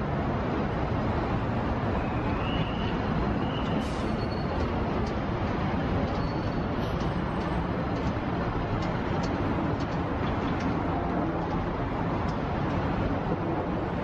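Steady urban street traffic noise from buses and cars running on the road, with a few faint short clicks and a brief high squeak a few seconds in.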